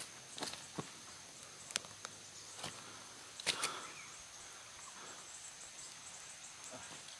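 Irregular footsteps and leaf rustling on a forest trail, a few sharp snaps and knocks among them, over a steady high insect drone.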